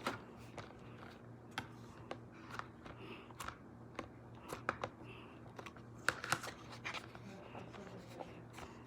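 Irregular light clicks and taps of Play-Doh being cut and handled with a knife, over a steady low hum.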